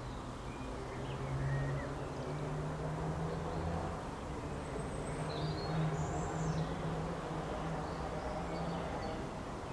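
Birds chirping now and then over a steady low hum.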